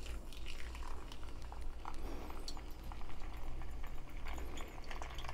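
A thin stream of hot water pouring from a gooseneck kettle onto ground coffee in a paper filter, a soft steady trickle with scattered faint ticks: the first pour of a pour-over brew.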